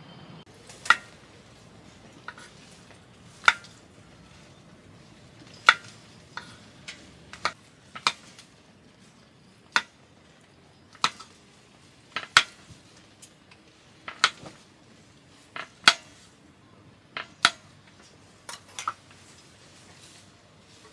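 Metal utensils clinking against dishes or cookware: sharp, ringing clinks at an uneven pace, about one every second.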